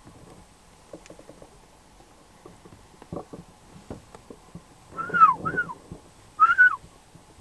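Three short high calls from a deer herd, each rising and then falling in pitch: two close together about five seconds in and one more a second later. A few soft knocks come before them.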